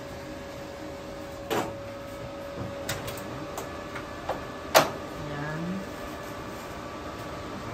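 Eaton 93E UPS being switched into start-up: a handful of sharp clicks and knocks from its breakers and front-panel buttons, the loudest about four and a half seconds in, over a steady electrical tone from the cabinet that is joined by higher tones about three seconds in.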